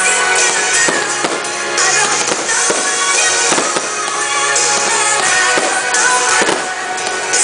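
Fireworks going off over loud music: repeated sharp bangs, one to two a second, with bursts of crackling between them.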